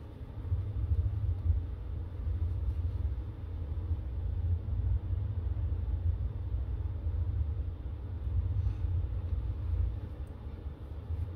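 A low, uneven rumble that grows louder about half a second in and eases near the end.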